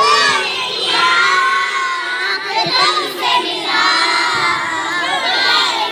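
A group of kindergarten children singing a song together, loud.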